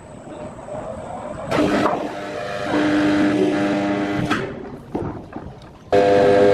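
Electric overhead crane hoist running in short bursts as it lowers a heavy strapped log: a steady, humming motor whine that starts suddenly, runs for a second or two, stops, and starts again near the end.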